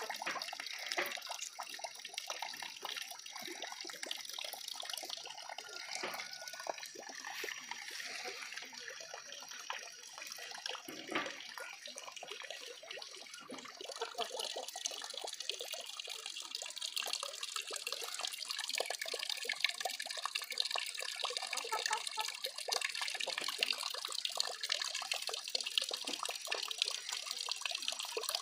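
Running water trickling and splashing steadily, with many small crackles of moving water.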